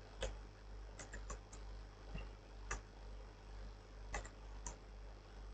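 Faint computer keyboard keystrokes: about ten scattered clicks, several close together, over a low steady hum.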